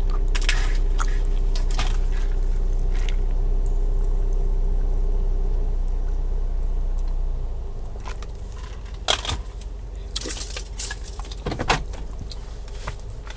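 Steady low hum that drops away about seven seconds in, under scattered short clicks and crunches of someone eating.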